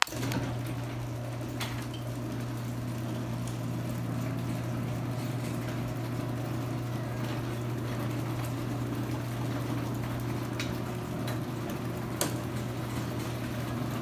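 Garage door opener motor running steadily as it raises the door, a low hum with a few faint clicks, started by a remote button press.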